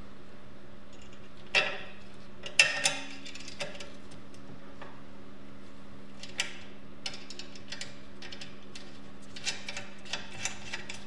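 Stainless steel bolts, washers and nuts clinking against a painted steel frame tube as they are fitted and the nuts are threaded on by hand. There are a few sharp metallic clicks in the first few seconds, then lighter scattered ticks, over a faint steady hum.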